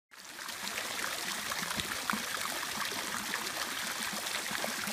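Water jets from a fountain's fish sculptures splashing into the basin: a steady patter and trickle of falling water that fades in at the start.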